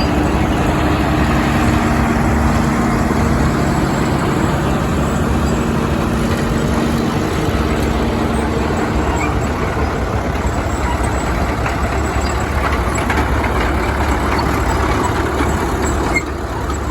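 Engines of vintage heavy construction machines (graders and bulldozers) running as they pass in a line, with a steady low rumble and a held tone through the first half. The level drops abruptly near the end.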